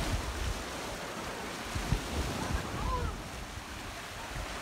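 Sea surf washing and breaking against shoreline rocks, with wind buffeting the microphone in gusts.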